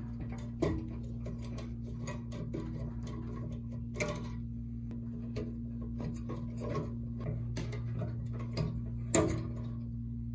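Small clicks and taps of hands and a tool working at an old bathroom exhaust fan's wiring and metal housing while the ground wire is disconnected, with a few louder knocks about a second in, about four seconds in and near the end. A steady low hum runs underneath.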